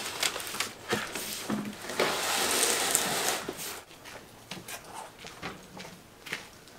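A few light knocks as a heavy cardboard box is set down on a wooden table, then a rushing hiss lasting about two seconds, followed by faint scattered ticks.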